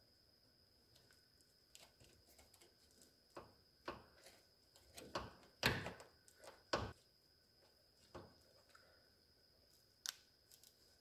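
Scattered light knocks and taps of a windshield and its rubber gasket being worked into the body opening with a hook tool and rope. The knocks come irregularly, with the loudest few a little past the middle.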